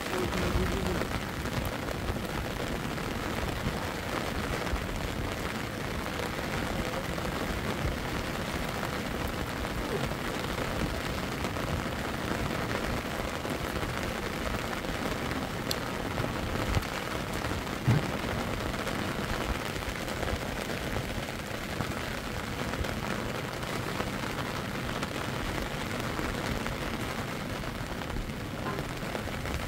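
Steady rain falling, an even hiss throughout, with two brief knocks a little past the middle.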